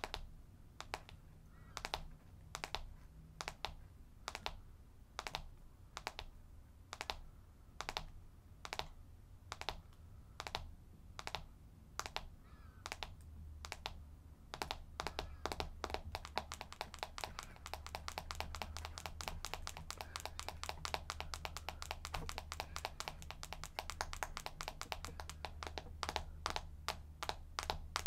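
Fingernails tapping on a camera: crisp, evenly paced clicks, about two a second at first, quickening about halfway through into fast tapping of several taps a second.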